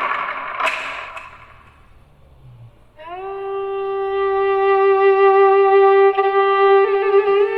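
A noisy rushing sound fades away, and after a short lull a bowed string instrument enters about three seconds in. It plays one long held note that slides up slightly into pitch, then moves to new notes near the end, as the opening of a slow cello melody.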